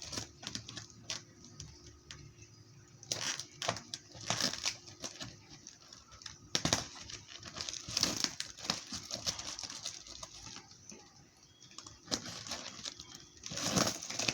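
Plastic packaging crinkling and rustling as it is handled and pulled open, with irregular crackles and several louder bursts of rustling.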